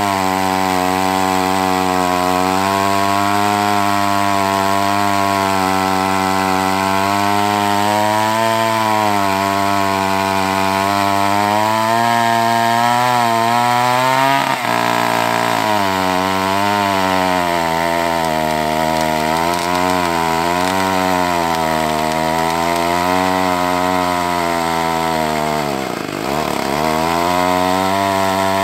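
A vintage (1990 or older) two-stroke chainsaw running at full throttle as it cuts through a squared timber, its engine note wavering under load. The revs drop suddenly about halfway through and sag deeply once near the end before picking up again.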